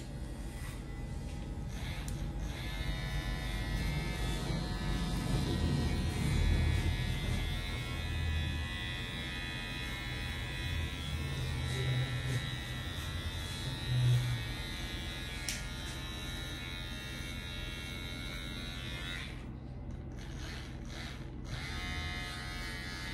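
Cordless electric hair clipper buzzing steadily as it cuts hair close to the scalp. Near the end the high buzz cuts out for about two seconds, then starts again.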